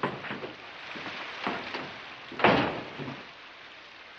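A door being opened and shut, a few knocks with the heaviest thud about two and a half seconds in, over a steady background hiss.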